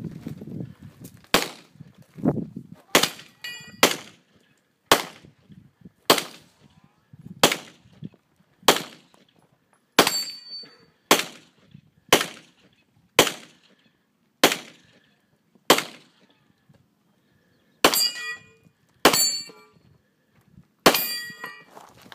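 A string of pistol shots, about one a second, fired at steel targets. Several shots are followed by the ringing clang of a hit steel plate, most clearly in the last few shots.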